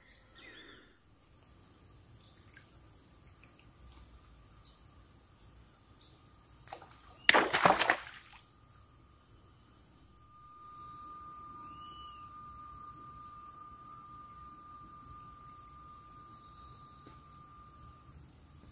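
Dusk countryside ambience: small high chirps repeating steadily, with a steady high hum coming in about ten seconds in. A short loud noise stands out about seven seconds in.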